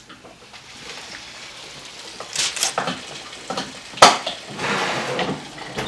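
Kitchen clatter: a few sharp clanks and knocks as the oven door is worked and a baking dish is handled, the loudest a single sharp clank about four seconds in.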